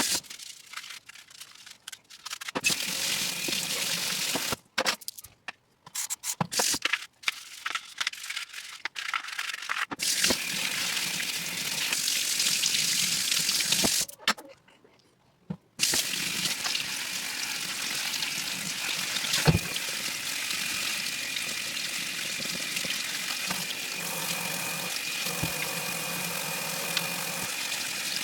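Water running and spraying as a dirty cone-type intake air filter is rinsed clean. The flow starts and stops several times in the first half, then runs steadily.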